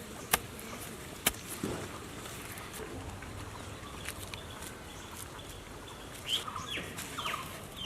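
Quiet rural outdoor ambience with a steady hiss: two sharp clicks in the first second and a half, then a bird calling with a series of short falling chirps near the end.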